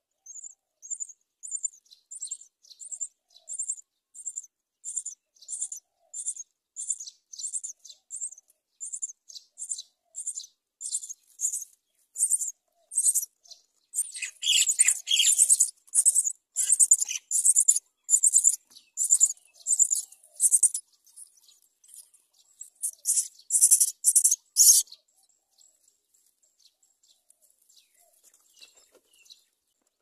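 Myna nestlings begging for food with high-pitched cheeps, about two a second at first. About halfway through the calls grow louder and come thick and fast for several seconds, then fall away to a few faint calls near the end.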